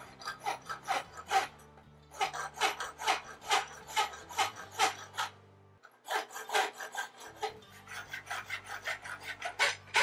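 Farrier's rasp filing the edge of a 3/8 by 1 inch aluminum bar held in a vise, in rhythmic back-and-forth strokes of about two a second with two short pauses. The edge is being dressed clean and square before fullering.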